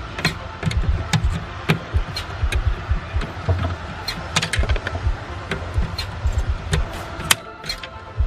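Irregular clicks, knocks and low thuds of hands and tools working on the plastic trim and shelf in a car's trunk.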